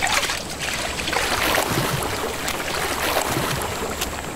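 Water splashing and churning again and again as Nile crocodiles thrash and lunge over a carcass.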